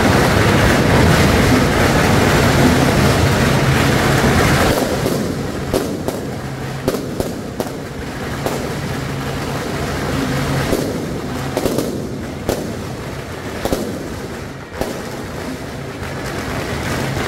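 Strings of firecrackers going off: a dense, continuous crackle for the first five seconds or so, then thinning to scattered sharp bangs.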